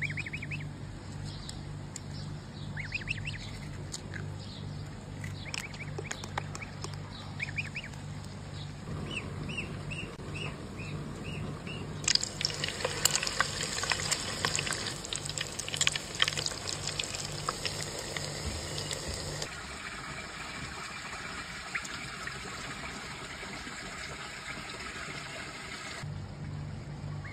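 Breaded patties frying in hot oil, sizzling and crackling through the middle of the clip. Before that come runs of short, repeated bird calls over a low pulsing hum.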